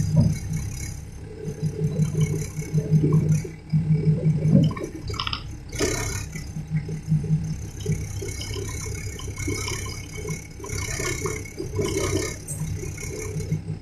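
A Cat excavator's diesel engine running steadily, with bursts of rattling and clatter as stones are moved; the loudest clatter comes about halfway through and again near the end.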